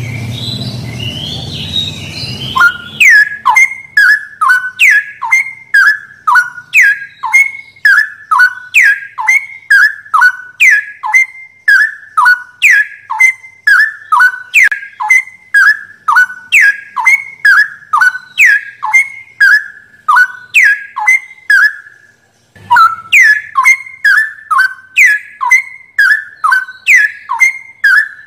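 Straw-headed bulbul (cucak rowo) song recording: loud whistled notes, each falling in pitch, repeated about twice a second in a very regular run. It starts after a muffled, rumbling opening about two and a half seconds in and breaks off briefly about 22 seconds in.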